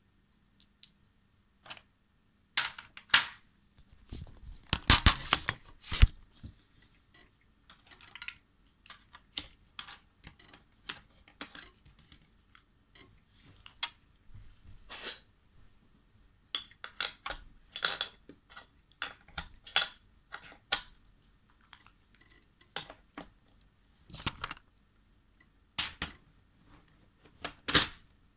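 Glass marbles clicking and knocking against each other and a hard surface: irregular sharp taps, with a busy cluster of louder knocks about three to six seconds in, then scattered single and paired clicks.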